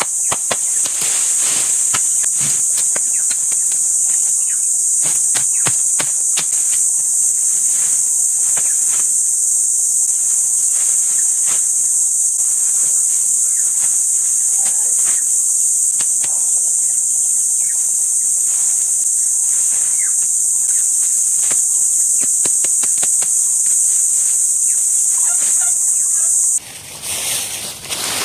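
A steady, high-pitched insect chorus, with scattered sharp clicks and knocks, that cuts off abruptly near the end.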